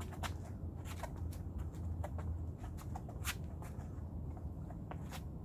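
Sneakers scuffing and tapping on a concrete driveway in quick, irregular steps of boxing shuffle footwork, over a steady low hum.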